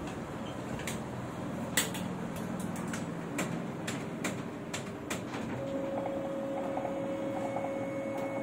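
Canon C3120 A3 colour copier starting up: a steady hum with a series of short clicks and knocks from its mechanism. A little past halfway a steady motor whine comes in and holds, joined later by a fainter, higher tone.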